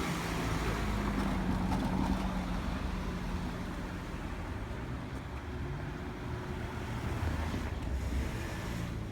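Steady low rumble of a moving vehicle, with a faint engine hum.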